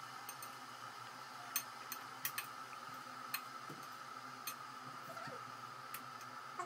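Scattered light clicks and taps of a wooden spoon against a pan and a ceramic plate as meatballs in sauce are served, over a steady faint hum.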